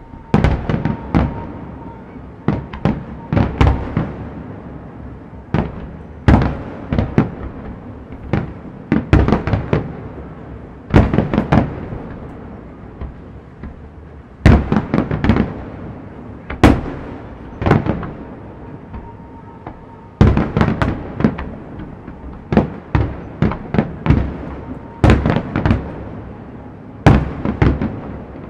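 Fireworks display: shells bursting in rapid volleys of sharp bangs, each trailing off briefly, with short lulls of a second or two between the volleys.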